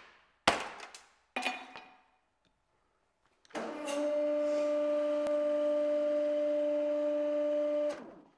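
Two sledgehammer blows on a motorcycle helmet stuck on a hydraulic press spike, each ringing briefly. About three and a half seconds in, the hydraulic press's pump starts with a steady hum and a clear tone while the spike retracts, then cuts off shortly before the end.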